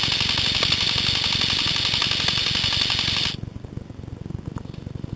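CYMA AK74 airsoft electric rifle firing one long full-auto burst, a rapid even clatter of shots, which stops abruptly about three seconds in.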